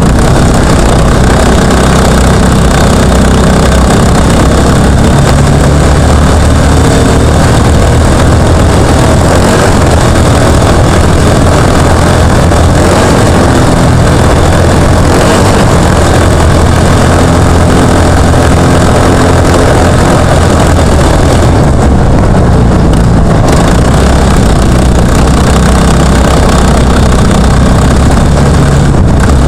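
Trophy kart engine, heard from an onboard camera, running loud under load. Its pitch rises and falls again and again as the throttle is opened and lifted, over a steady hiss.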